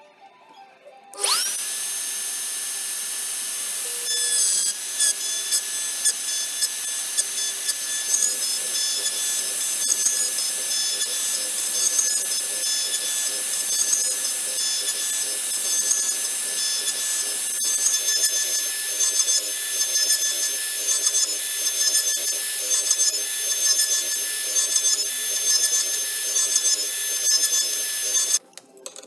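Router spindle of a homemade CNC router winding up with a rising whine about a second in, then holding a steady high whine while the bit mills into a wooden block, with a rougher, uneven cutting noise over it from about four seconds in. It cuts off suddenly near the end.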